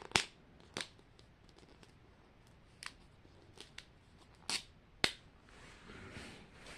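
Scattered sharp clicks and taps of small plastic toy packaging being handled, about six in all, with a soft crinkle of plastic wrapper near the end.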